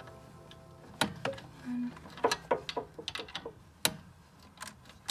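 Irregular metallic clicks and clinks of hand tools and a nut being worked on a car's strut and hub hardware, with a brief low hum a little under two seconds in.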